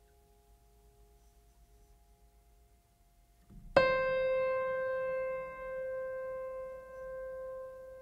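Soft background music: a faint held tone, then about four seconds in a single piano note is struck and rings on, slowly fading.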